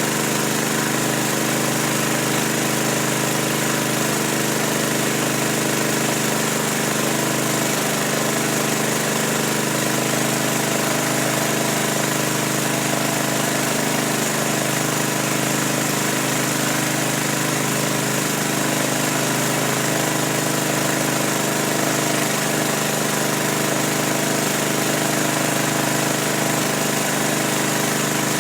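A motor running steadily, a continuous even hum with no change in speed.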